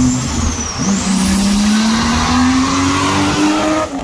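Car engine pulling hard: the revs drop at a gear change about half a second in, then climb steadily through the next gear, with a high whine rising alongside until the revs fall away just before the end.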